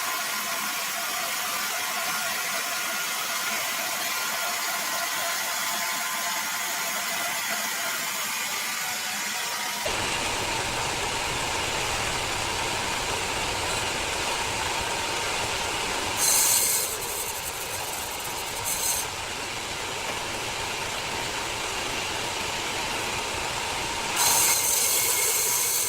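Sawmill machinery running steadily. About ten seconds in the sound changes abruptly to a lower, fuller running noise, with three short hissing bursts near the middle and end.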